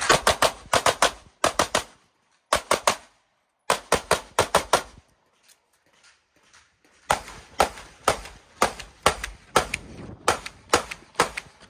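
Pistol shots fired in fast strings, with many quick shots in a row, short breaks between groups, and a pause of about two seconds a little past halfway.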